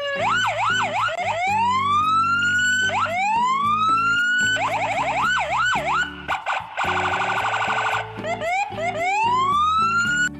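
Electronic police siren cycling through fast yelps, slow rising wails and a stretch of rapid pulsing tone, then cutting off just before the end.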